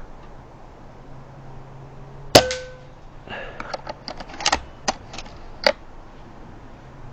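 A single shot from a PCP air rifle, a sharp crack with a short metallic ring, followed by a run of clicks and clacks as the rifle's action is cycled to load the next pellet.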